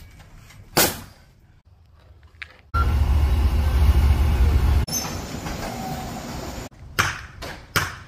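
Hitachi wheel loader's diesel engine running with a loud, steady low rumble for about two seconds. It is set between shorter construction sounds: a single sharp crack about a second in, and a few sharp knocks near the end.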